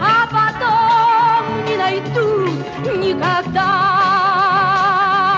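A woman singing the final line of a Soviet film song with instrumental accompaniment. Her voice slides down in pitch, then holds a long closing note with a wide vibrato from about three and a half seconds in.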